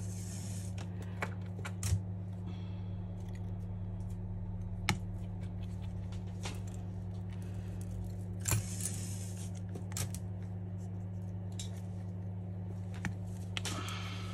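Small metal clicks and clinks of a precision screwdriver and other small tools being worked and set down on a workbench while screws are driven into a smartphone's internal bracket, about half a dozen scattered sharp ticks. A steady low hum runs underneath.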